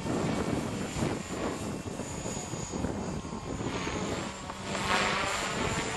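Electric RC helicopter, powered by a JGF 500TH brushless motor, flying with a steady high-pitched motor whine and rotor whoosh that swells louder about four seconds in. Wind buffets the microphone throughout.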